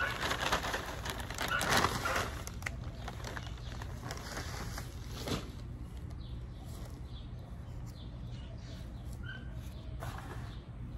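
Compost and manure poured from a paper bag into a plastic tub, a rushing hiss of falling material for about two seconds. Then a quieter outdoor background with a few faint bird chirps near the end.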